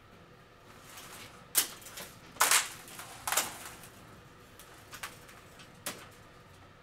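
A handful of short rustles and scrapes from an electrical cord being handled and pulled, the loudest about two and a half seconds in.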